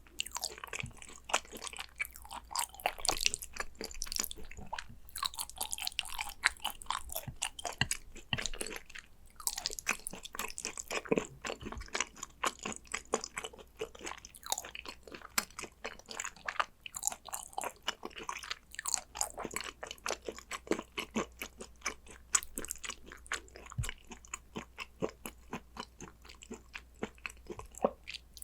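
Close-miked chewing of gochujang-seasoned raw hanwoo beef tartare (yukhoe): a steady, rapid run of small mouth clicks and smacks, with occasional louder bites.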